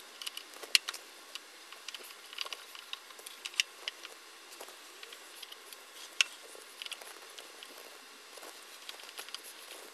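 Irregular light clicks and taps of a screwdriver turning small screws out of the plastic carburetor of a Briggs & Stratton 500 series lawnmower engine, with sharper clicks about a second in, at about three and a half seconds and about six seconds in.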